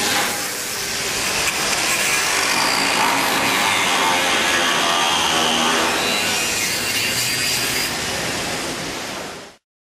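A CNC pipe-cutting machine's 130-amp plasma torch cutting steel, giving a loud, steady hiss with a faint whine in it, which cuts off suddenly near the end.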